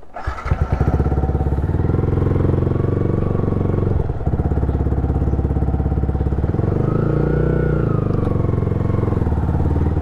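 Yamaha R15's single-cylinder engine running at low revs through an aftermarket exhaust, with an even, steady pulse. It comes in sharply about half a second in and holds, dipping briefly around four seconds in, as the bike rolls slowly.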